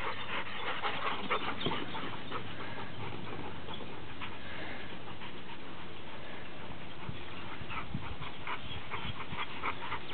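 Dogs panting: quick runs of short breaths in the first couple of seconds and again near the end, with a steady outdoor hiss in between.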